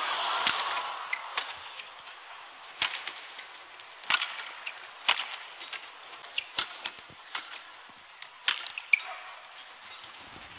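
Badminton rally: rackets striking the shuttlecock in sharp cracks roughly once a second, with a few short shoe squeaks on the court mat. Crowd noise fades out just after the start.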